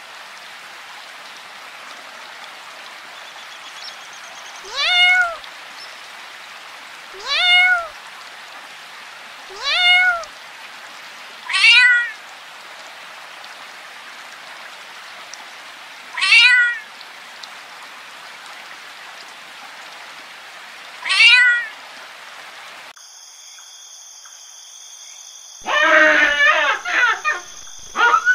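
Kitten meowing six times, a few seconds apart, each meow sliding up in pitch. Near the end the sound cuts to a steady insect-like trill, over which comes a burst of loud baboon calls.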